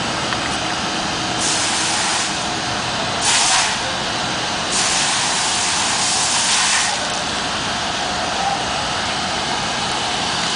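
Car wash equipment running with a steady hiss, broken by three louder bursts of hissing spray from a nozzle: a short one about a second and a half in, a brief one at about three seconds, and a longer one lasting about two seconds from just under five seconds in.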